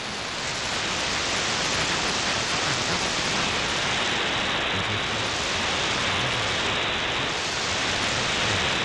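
Software-defined shortwave receiver in AM mode tuned to an empty frequency in the 31 metre band: steady static hiss of band noise, with no station coming through.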